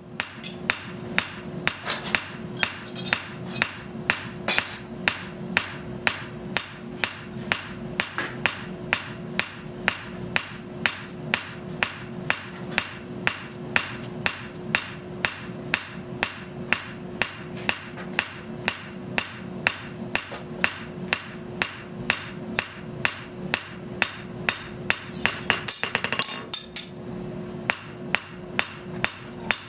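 Hammer blows on hot steel forging a Japanese knife blade, struck in a quick, even rhythm with a brief pause near the end. A steady hum runs underneath.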